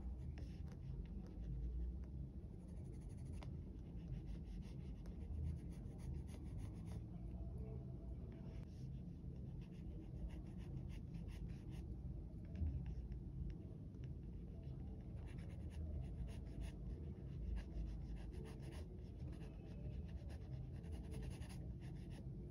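Graphite pencil scratching on sketchbook paper in quick repeated strokes. The strokes come in short runs with brief pauses between them.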